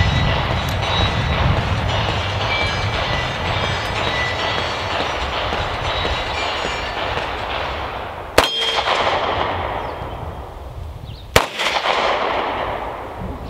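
Two handgun shots about three seconds apart, each a sharp crack with a short echo, the first a little over halfway through. Under them a loud, steady rushing noise fades away over the second half.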